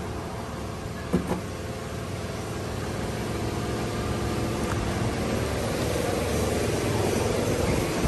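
1979 Chevrolet Malibu's engine running steadily, a little louder in the second half as the car is moved back. There is a short knock about a second in.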